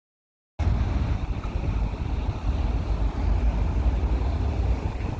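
Gas-powered LiAZ-5292.71 city bus running, heard from inside: a steady low rumble with road and cabin noise, cutting in suddenly about half a second in.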